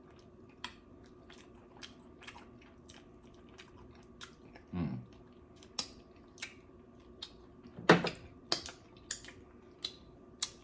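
A person chewing food close to the microphone: irregular wet clicks and mouth smacks, with a louder smack about eight seconds in. A short low hum falls in pitch about five seconds in.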